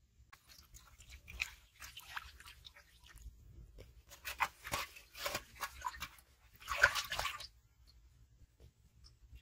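Water splashing and sloshing in a metal pot holding live, freshly caught fish, in a series of short splashes with the loudest cluster about seven seconds in.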